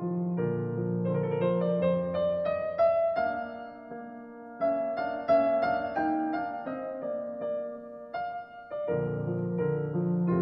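Background piano music: a slow, gentle melody of single notes over low chords. The low chords drop out for several seconds in the middle and come back near the end.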